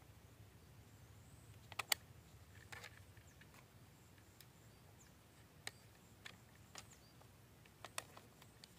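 Sharp, scattered clicks and taps of small plastic and metal parts as a comb-toothed tiller attachment is handled and fitted onto a miniature hand tractor model; the loudest is a double click about two seconds in, with otherwise near quiet.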